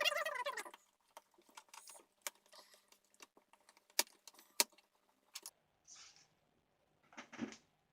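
Metallic jingling and light clicks of small screws being undone from a Toshiba Satellite laptop's plastic base with a screwdriver and handled. The jingle is densest in the first second, then scattered clicks follow.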